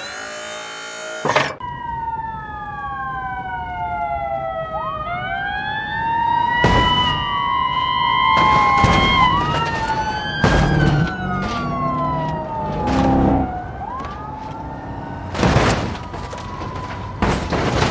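Siren wailing in slow, long glides that fall and rise again, with two wails overlapping at times, broken by several sharp clacks.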